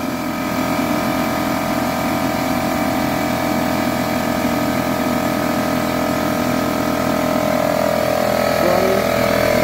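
Porter-Cable 6-gallon oil-free pancake air compressor running steadily, its motor and pump building pressure in the tank. It runs on a 2000-watt power inverter fed from a car battery.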